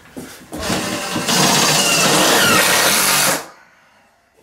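Makita cordless driver driving a screw into a shade's side rail. The motor spins up about half a second in, runs loud and steady under load for about two seconds, then stops suddenly.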